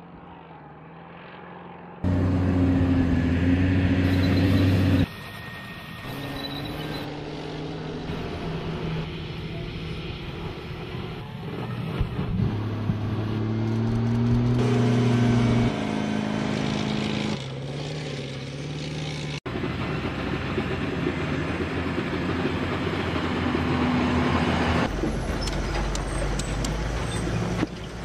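Engines of heavy armoured military vehicles running as they drive, in a series of clips that cut abruptly from one vehicle to the next every few seconds. Quieter for the first two seconds.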